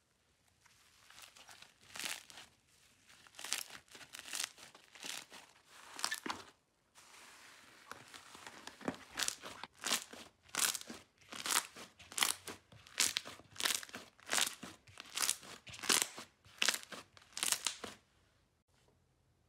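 Airy, foamy slime being stretched and squeezed by hand, crackling and popping as its sticky air pockets pull apart and burst. From about nine seconds in, the hands press the lump in a steady rhythm of close to two crackly pops a second, which stop suddenly near the end.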